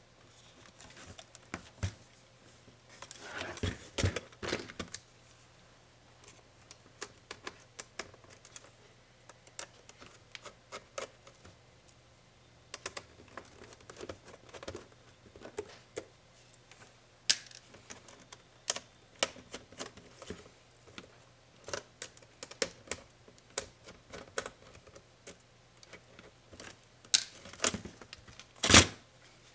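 Irregular clicks, taps and small knocks from a ThinkPad Yoga 260 laptop's plastic and metal parts being handled and worked apart by hand. A cluster of clicks comes about four seconds in, and one louder knock comes near the end.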